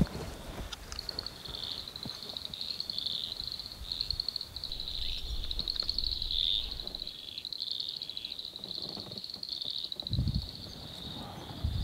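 A dense chorus of frogs, with high-pitched rapid trills and chirps overlapping continuously. A couple of dull low thumps come near the end.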